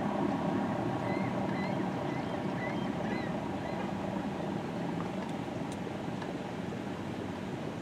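ACA Allertor 125 outdoor warning siren in the tail of its wind-down after the alert test: a low hum of several steady tones, slowly fading as the rotor coasts down.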